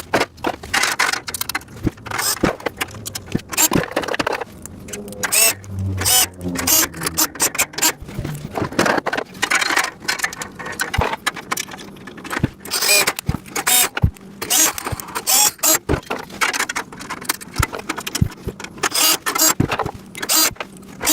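Rapid, irregular clicks, clanks and rattles of metal rack parts and hardware being handled and fitted together during assembly.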